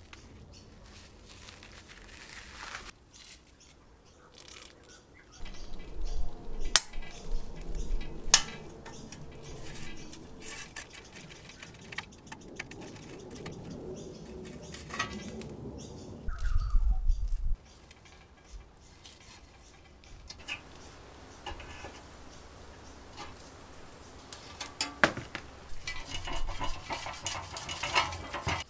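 Gloved hands handling and working the rusty steel parts of an old tricycle: scattered metal clinks and taps, scraping and rubbing, with a heavier thump a little past halfway and a dense run of clicks and scrapes near the end.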